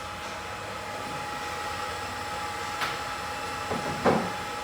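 Steady hum of a BGA rework station's running fans with a faint whine, broken by a sharp click a little before the middle and a louder knock near the end.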